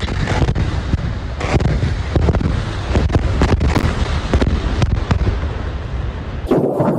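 Irregular sharp cracks and pops, several a second, over a steady low rumble, at a large blaze after an airstrike. Near the end the rumble cuts out and a rushing, wind-like noise takes over.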